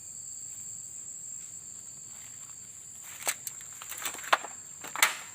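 Insects droning on one steady high note, with a few crackling footsteps through dry leaves and brush in the second half.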